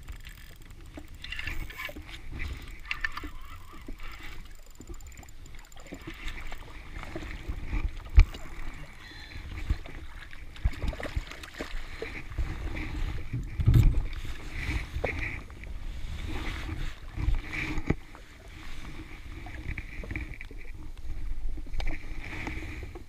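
Small waves lapping and slapping against a jet ski's hull, with wind buffeting the microphone and a few sharp knocks, the loudest about eight and fourteen seconds in.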